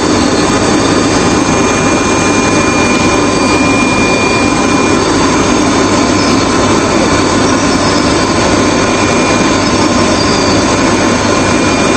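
Bubble-type vegetable washing machine running, with its bubble (air) function and transfer conveyor switched on: a steady, loud, unbroken noise.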